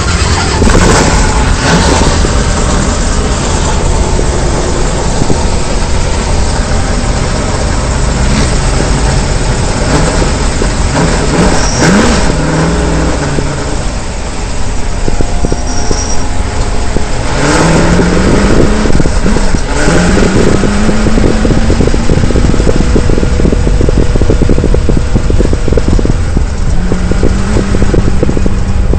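Sand limo prerunner truck's engine, loud and close, revving and accelerating as the truck drives across sand. Its pitch climbs a few times as it pulls through the gears, with the hardest pull a little past halfway.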